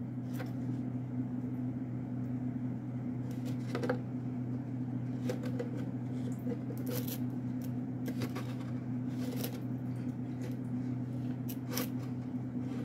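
Scattered light rustles and clicks of fingers pushing soaked snow peas into potting soil in a cut-open plastic jug, over a steady low hum.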